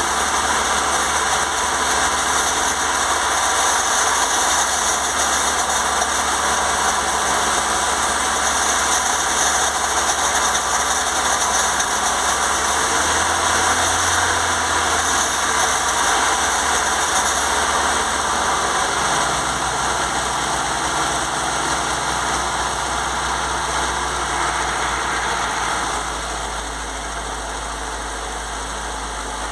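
FSC Żuk's carburetted four-cylinder petrol engine idling steadily, burning off an ATF top-end treatment; the exhaust still leaks slightly between the intake and exhaust manifolds. The sound drops a little in level a few seconds before the end.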